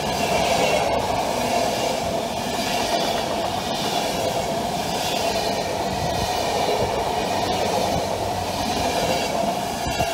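MÁV-START passenger coaches rolling past close by: a steady rumble of steel wheels on rail, with a constant hum and scattered clicks as the wheels cross the rail joints.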